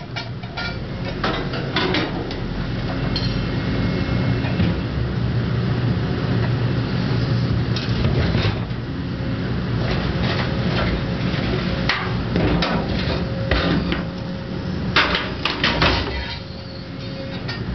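Excavator-mounted POQUTEC hydraulic shear gripping and crushing a steel tank, with the excavator's diesel engine and hydraulics running steadily underneath. Scattered metal-on-metal clanks and knocks as the jaws bite and the tank shifts, with a cluster of loud bangs about three quarters through.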